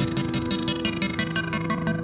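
Background music led by a plucked, strummed guitar over held notes, with a steady fast beat.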